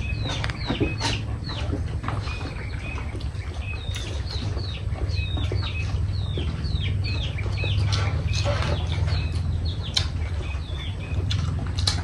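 Birds chirping over and over, short high calls that each drop in pitch, about two a second, above a steady low hum. Light scattered clicks of people eating by hand come through now and then.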